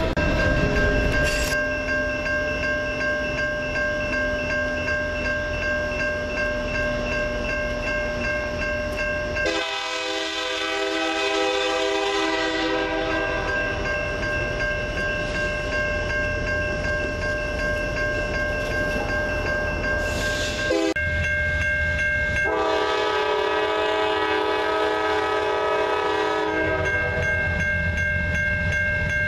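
Freight train of autorack cars rolling past with steady wheel-on-rail noise. About nine and a half seconds in, a diesel locomotive's multi-chime air horn sounds for a few seconds, and again for about four seconds later on.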